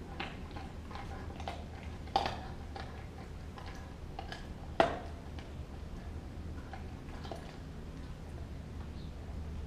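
A large pitbull–German shepherd mix dog gnawing a frozen raw pig's foot: scattered clicks of teeth on frozen bone, with two loud cracks, about two seconds in and again about five seconds in.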